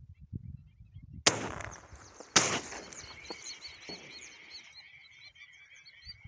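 Two shotgun shots about a second apart, followed by a flock of waterfowl calling as it takes flight over the water, many short calls overlapping.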